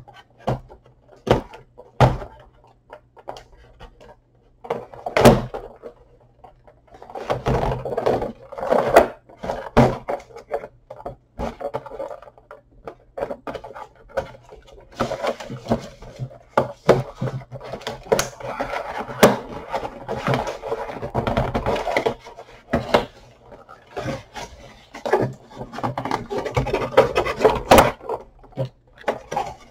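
An action figure's cardboard-and-plastic box being pried and pulled open by hand: scattered sharp knocks and clicks at first, then longer stretches of scraping and crackling packaging from about a quarter of the way in. It is hard to get open.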